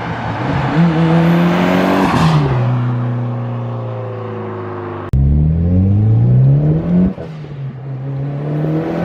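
Mitsubishi Lancer Evolution X's turbocharged four-cylinder running through a Borla cat-back exhaust as the car drives past, its note dropping in pitch about two seconds in and then fading slowly. About five seconds in it jumps to hard acceleration, rising in pitch, with a gear shift about seven seconds in before it climbs again.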